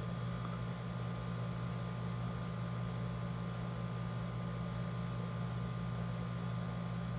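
Steady low electrical or fan-like hum with a faint high tone above it, unchanging throughout: background room tone.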